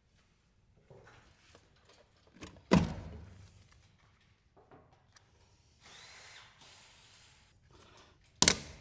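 Knocks and scraping from server hardware being worked loose by hand: two sharp bangs, about three seconds in and near the end, with smaller clicks and a stretch of scraping between. A part is stuck and won't come out.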